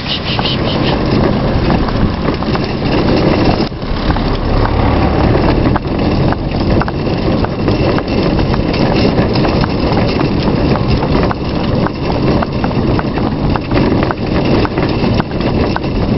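Hooves of a pair of donkeys clip-clopping on a tarmac road, many irregular knocks, over the steady rumble of the cart's wheels rolling.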